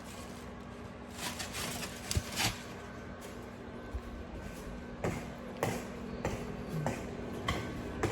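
Microwave oven running with a steady hum while heating corn, with scattered sharp clicks and knocks of things being handled close by.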